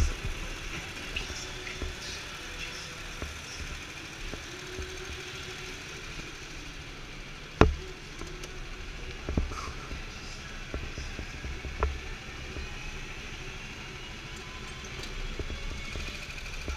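Go-kart driven around an indoor track, heard from a camera mounted on the kart: a steady hum with a faint whine that rises and falls with speed. A few sharp knocks, the loudest about eight seconds in.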